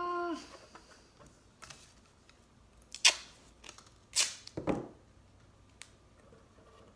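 Blue duct tape being pulled off the roll and torn, two short rips a little over a second apart, after a brief closed-mouth hum at the start.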